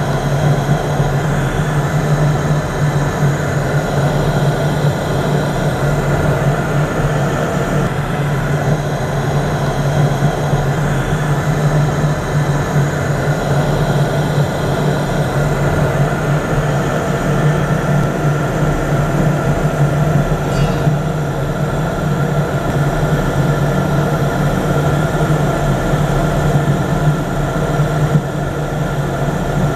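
Model 8550 thermoelectric generator's fuel burner running lit: a steady low hum with a rushing combustion noise over it, with no change in level.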